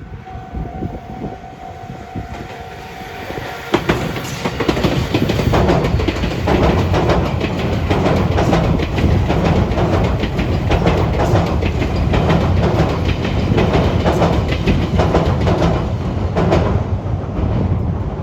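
Electric train passing over the points of a railway junction: from about four seconds in, a loud rapid clatter of wheels striking the rail joints of the turnout over a low rumble, fading near the end.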